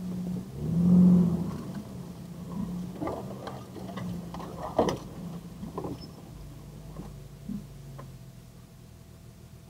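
Jeep TJ engine running at a crawl off-road, swelling briefly about a second in as it takes load. A few sharp knocks and scrapes come in the middle.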